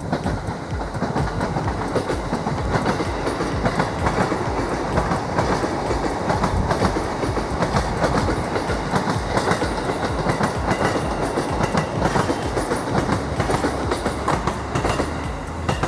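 Electric commuter train passing close by on the line beside the path, its wheels clattering over the rails in a steady run of clicks and knocks over the rolling noise.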